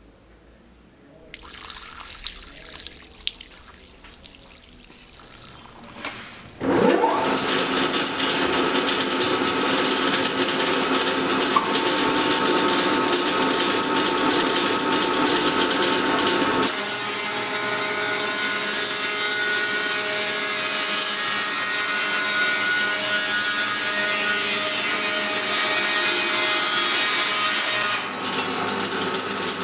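Water trickling from the blade-cooling tap, then a Pilous CTR 750 EV band sawmill starts up with a brief rising whine and runs loud and steady, its band blade humming with many steady tones. About two-thirds of the way in the sound changes as the blade works through a log.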